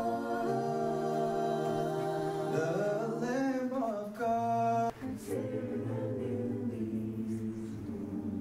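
A cappella vocal group of men and women singing held chords in close harmony into microphones, with a sliding run of pitches around three seconds in; the voices break off briefly about five seconds in and then resume.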